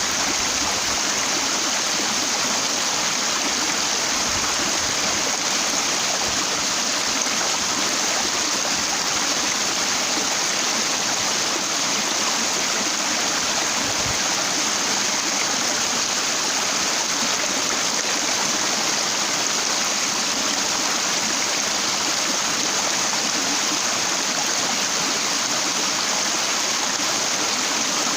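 Stream water rushing and splashing over rocks, a steady, even sound with no change.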